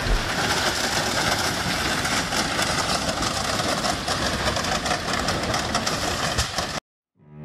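Autorack freight car rolling under a low bridge, its corrugated sheet-metal roof being crushed and scraped along the bridge structure, heard as a dense, continuous metallic scraping and grinding over the rumble of the train. It cuts off suddenly near the end.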